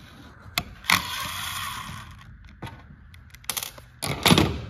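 Metal parts and hand tools clicking and clattering while a Hemi cam phaser is being worked on. About a second in there is a hiss lasting about a second, and the loudest clatter comes near the end.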